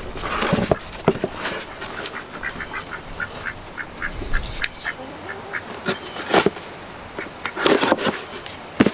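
Ducks quacking in a quick run of short calls, mixed with the rustling and scraping of a cardboard box being handled and cut open.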